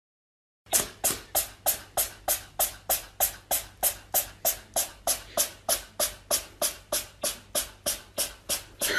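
A cat giving a short, sharp call over and over, about three a second and evenly spaced, with a louder, drawn-out cry breaking in at the very end.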